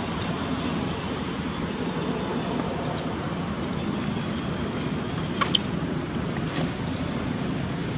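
Steady outdoor background noise with no clear source, broken by two short sharp clicks about five and a half seconds in and a fainter click about a second later.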